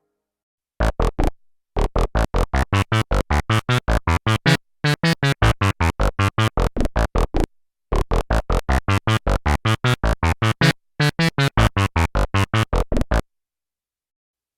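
Sequential Prophet-6 analog synthesizer playing a sequenced FM patch, with oscillator 2 modulating at audio rate through the Poly Mod section, dry with no effects: rapid short, staccato notes, about seven a second, in several runs broken by short pauses, stopping about a second and a half before the end.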